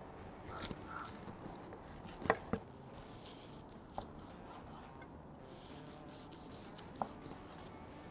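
Chef's knife cutting a seared tomahawk steak away from its bone and slicing it on a wooden cutting board: faint scraping of the blade through the crust and meat, with a few sharp knocks of the knife on the board or bone, the loudest pair about two seconds in.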